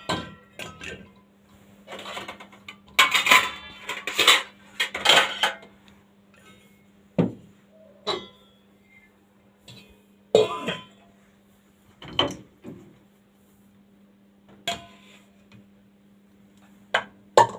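Dishes and pots clinking and knocking as they are lifted out of a dishwasher rack and set down, in scattered separate knocks with short ringing, the busiest stretch a few seconds in. A faint steady low hum runs underneath.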